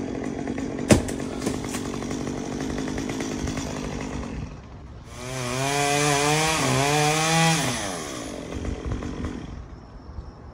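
Two-stroke chainsaw running at a low, steady idle, then throttled up about halfway through for roughly three seconds, its pitch wavering as it revs under load, before dropping back and fading.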